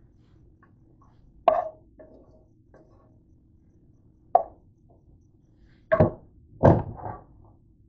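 A spatula knocking and scraping against a frying pan while fried onions are pushed out of it. There are single knocks about a second and a half in and again past four seconds, then a cluster of louder clanks near the end, over a low steady hum.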